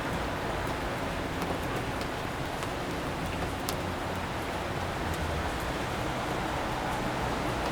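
Steady rain falling on city pavement with scattered droplet ticks, over a low continuous rumble of distant traffic.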